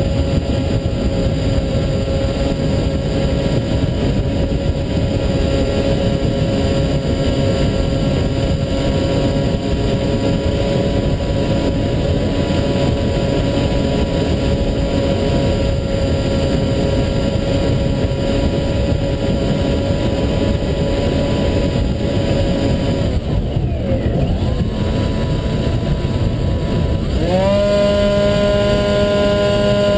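Electric motor and pusher propeller of an HK Bixler model plane heard from its onboard camera, whining at a steady pitch over rushing wind. About three quarters of the way through the whine fades and wavers as the throttle eases. Near the end it rises sharply to a higher, steady pitch as the motor is throttled up.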